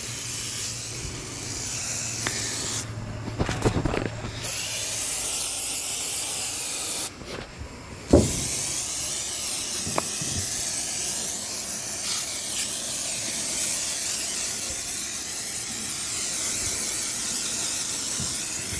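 Aerosol can of foaming engine cleaner spraying in long steady hisses, stopping briefly twice, with a sharp click about eight seconds in.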